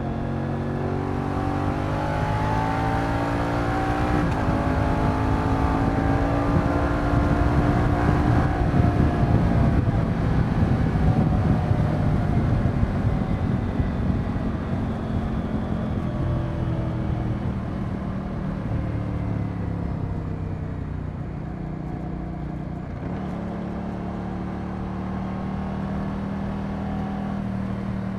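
Moto Guzzi V100 Mandello's transverse V-twin engine accelerating under load, rising in pitch, shifting up about four seconds in, and pulling up again to its loudest near the ten-second mark. It then eases off and settles to a steadier, lower cruising note, with one quick dip in pitch near the end.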